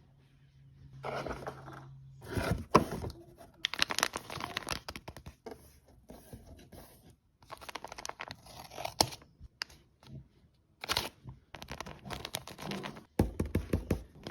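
Paper being handled close up: crinkling, rustling and tearing in short irregular bursts, with light taps and clicks.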